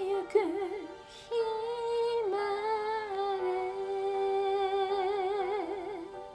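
A woman singing a slow melody, holding long notes with a wide vibrato, after a short break about a second in; the last held note fades out near the end.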